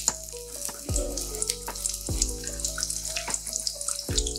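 Bread pakora halves sizzling and crackling in hot oil during their second fry for crispness, with background instrumental music of notes struck about every two seconds.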